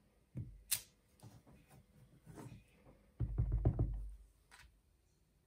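Clear acrylic stamp block tapped repeatedly onto a stamp ink pad to ink the stamp, a quick run of soft knocks about three seconds in. Before that come a couple of sharp clicks and light handling as the stamp and block are picked up.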